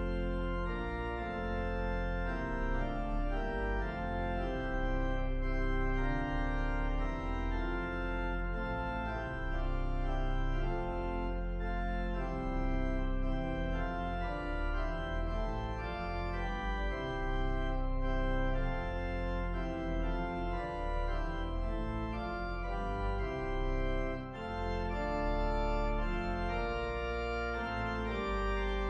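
Organ playing slow, sustained chords over a held bass note.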